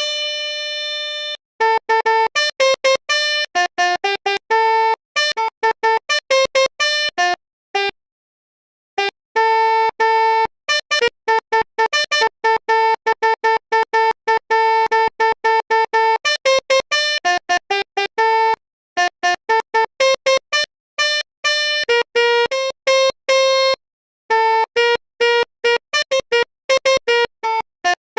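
Electronic 'telolet' bus-horn tune: a quick string of short, buzzy pitched notes with dead-silent gaps between them, opening on a longer held note and pausing briefly about eight, nineteen and twenty-four seconds in.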